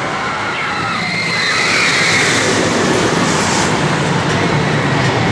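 Linear synchronous motor (LSM) launch of a roller coaster train: a rising electric whine as the train accelerates, then a rumble of the train on the track that builds near the end.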